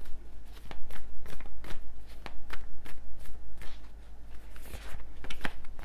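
A deck of oracle cards being shuffled by hand: quick, irregular papery taps and flicks, a few per second.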